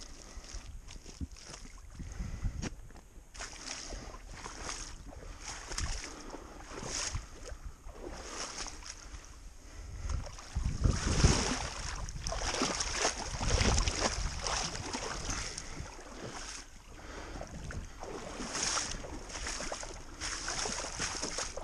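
Shallow swamp water and mud splashing and sloshing as a trapped beaver is dragged out by hand, with boots squelching in the mud. The sloshing comes in irregular bursts and is loudest about halfway through.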